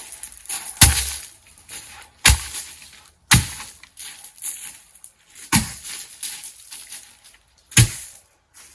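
Five sharp, heavy knocks a second or two apart, wood being struck or chopped.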